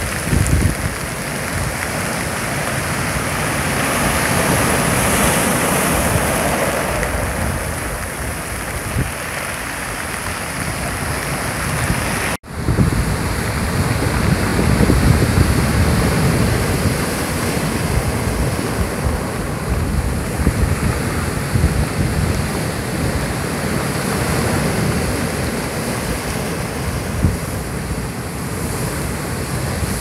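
Rough sea surf breaking and churning among rocks and onto a dark pebble beach, swelling and easing in waves, with wind buffeting the microphone. The sound breaks off for an instant about twelve seconds in, where the recording cuts to another spot.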